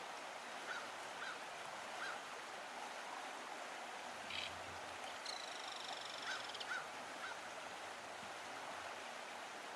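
Faint outdoor ambience with a steady background hiss and scattered short bird calls, including a rapid trill lasting about a second and a half around the middle.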